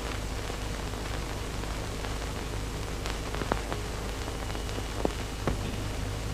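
Steady hiss with a low hum and scattered faint clicks and crackles: the surface noise of an old 1930s optical film soundtrack.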